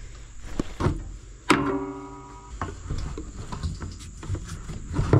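Handling clicks and knocks while a riding mower is refuelled from a plastic gas can, with one sharp metallic clang about a second and a half in that rings for about a second.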